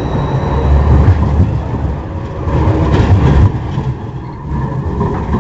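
Model tram running along the layout track: its small electric motor and its wheels on the rails give a continuous rumble and rattle, louder for the first three seconds or so as it passes close by.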